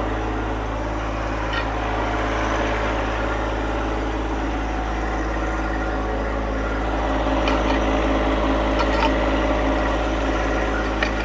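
Engine running steadily at an even speed, with a few faint clicks, as a log is being lowered onto a sawmill bed.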